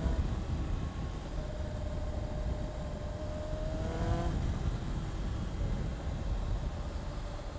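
Honda CBR600RR's 599 cc liquid-cooled inline-four running at a steady cruise, under heavy wind rush on the microphone. The engine note climbs slightly about four seconds in, then drops back lower.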